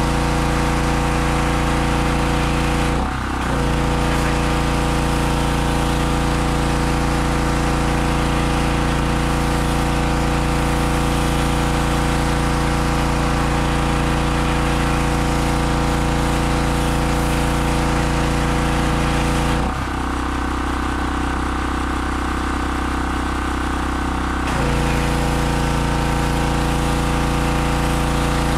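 Harbor Freight 2500 PSI gas pressure washer running steadily, its 160cc 4 HP engine under the hiss of the spray. The spray drops out for a moment about three seconds in, and again for about five seconds around twenty seconds in, leaving the engine note on its own.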